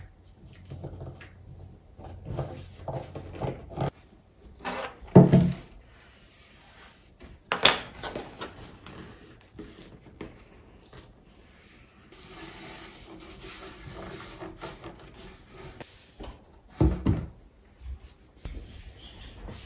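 Hands working paper and gummed tape on wooden art panels: palms rubbing the paper flat and pressing the tape along the edges, with several knocks and thumps as the wooden panels are handled and set down. The sharpest knock comes about halfway through, with a stretch of rubbing after it.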